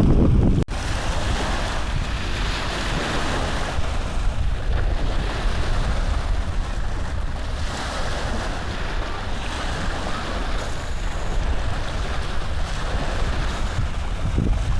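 Steady rushing noise, like handling or wind noise on the microphone, that briefly cuts out under a second in.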